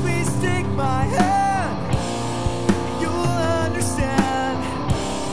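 Rock song with a sung vocal over guitar and drums keeping a steady beat.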